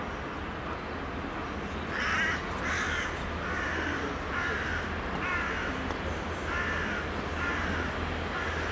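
A bird calling over and over, eight or so short harsh calls starting about two seconds in, over a low steady hum.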